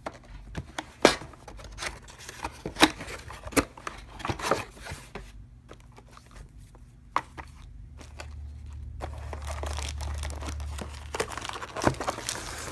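Packaging being opened and handled: tearing and crinkling with scattered sharp knocks and rustles, and a low rumble for a few seconds past the middle.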